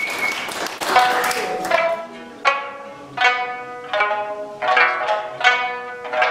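Several Okinawan sanshin (three-string snakeskin lutes) playing together in a Ryukyu folk song, plucked notes coming about every three-quarters of a second, each ringing and fading.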